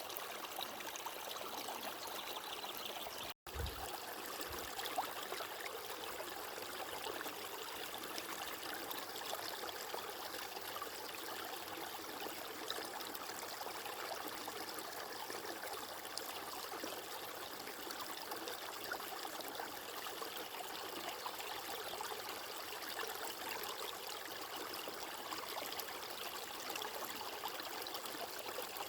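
Steady running water, an even trickling rush with no breaks in the flow, cut by a momentary dropout to silence about three seconds in.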